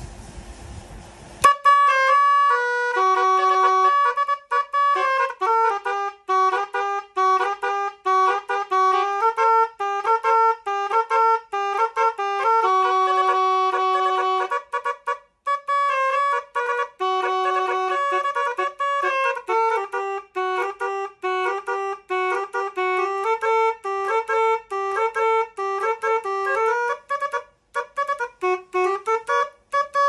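Six-trumpet telolet basuri musical air horn playing a fast melody of quick pitched notes from a small compressor air tank. The tune starts about a second and a half in and breaks off briefly twice.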